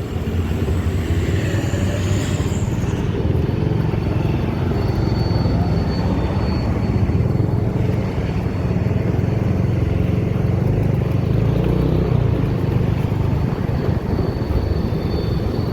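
Steady low rumble of a large vehicle engine with road noise.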